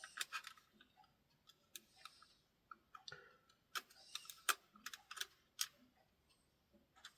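Irregular small sharp clicks and taps of plastic as the clipped-on back case of a Sony ICF-SW100 pocket radio is pried and worked loose.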